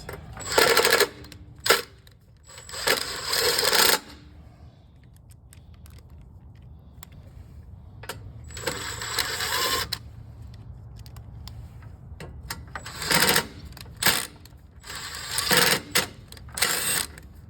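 Impact gun running nuts onto a snowblower in about six short bursts, with a few sharp metal clicks in between.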